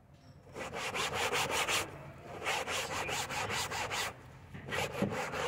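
A damp cloth scrubbed rapidly back and forth against a car's fabric headliner: a quick rasping rub in three spells, with short pauses about two and four seconds in.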